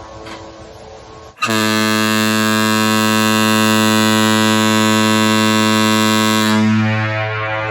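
Kahlenberg KM-110 ship's air horn sounding one long, deep single-note blast of about five seconds. It starts suddenly about a second and a half in and dies away near the end. At the start the fading tail of an earlier blast is heard.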